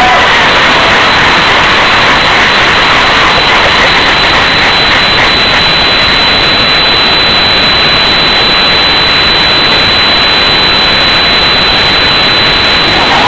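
Loud, steady audience applause, distorted by an overloaded camera microphone.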